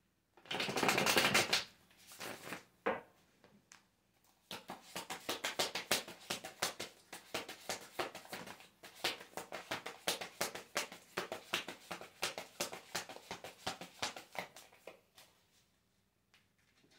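Tarot deck being shuffled by hand. A brief dense rush of cards comes about half a second in, then a long run of quick, crisp card-on-card taps lasting about ten seconds, which stops near the end.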